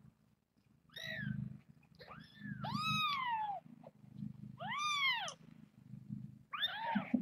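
Kittens mewing: four or five short, high-pitched mews a second or two apart, each rising and then falling in pitch.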